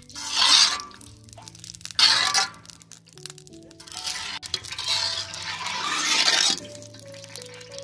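Bursts of sizzling and clinking as butter and an onion are pushed off a metal spoon into hot oil in a large metal cooking pot: a short burst just after the start, a sharper one about two seconds in, and a longer sizzle from about four and a half to six and a half seconds. Background music with a slow melody plays throughout.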